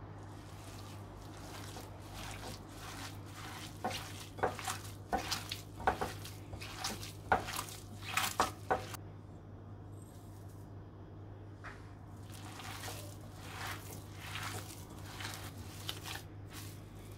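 Raw ground meat mixed with spices, parsley and breadcrumbs being squeezed and kneaded by hand in a glass bowl, making wet squelching squishes: a loud run of them in the middle and softer ones near the end. A steady low hum runs underneath.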